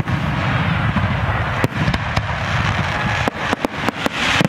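Fireworks display: a dense, continuous low rumble of bursts, then from about three seconds in a rapid run of sharp cracks and bangs.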